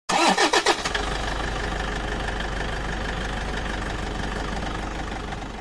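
A truck engine idling steadily, after a brief opening sound with gliding pitch in the first second; it fades out near the end.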